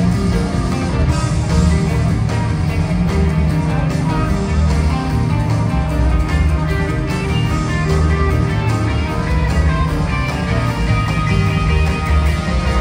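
Rock band playing live, electric guitar over bass and drums, heard from the audience in a large hall. The music runs on steadily with no pause.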